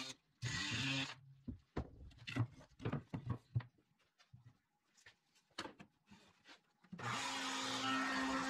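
An oscillating multi-tool briefly cuts through a tab in plywood, followed by scattered knocks and taps of wooden pieces being handled. About seven seconds in, a table-mounted router with a flush trim bit switches on and runs steadily with a constant hum.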